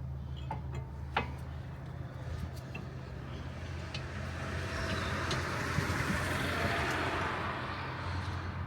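A passing vehicle's noise swelling and fading over a steady low hum, with a few light clicks near the start.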